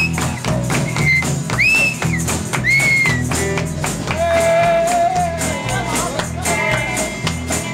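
Live band playing: a harmonica solo of bending notes and one long held note, over guitar, bass and a steady drum beat with a jingling cymbal.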